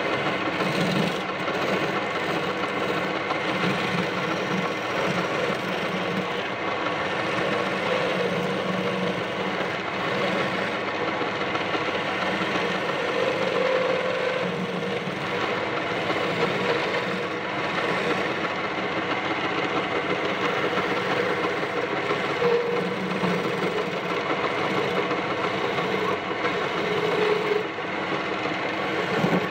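Wood lathe running steadily while a hand chisel cuts and scrapes the spinning wooden spindle, turning its beads down to a smooth, plain shape.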